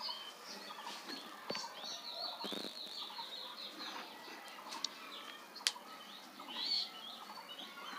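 Small birds chirping and twittering, with a quick run of rapidly repeated high notes from about two to four seconds in. A couple of faint sharp clicks.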